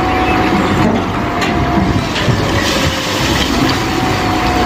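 A full-size wheel loader working: its diesel engine and hydraulics run with a dense, steady noise and a faint steady whine, while rubble spills from the raised bucket.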